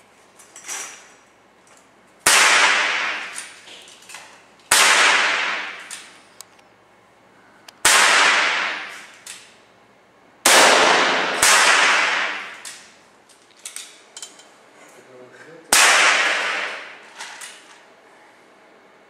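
Six loud PCP air rifle shots fired at irregular intervals, the second-to-last pair coming about a second apart, each followed by a long ringing decay.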